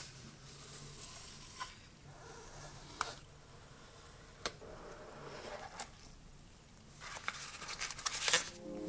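Cardboard packaging handled with gloved hands: sliding and rustling with a few sharp clicks spread through, a craft knife slitting the box's seal sticker, and a louder flurry of card and paper rustling near the end as the box is opened.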